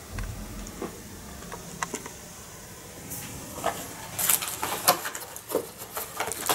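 Handling noise from a cardboard box and cellophane wrapping: a dull bump at the start, then a busy run of crinkling crackles and clicks in the second half.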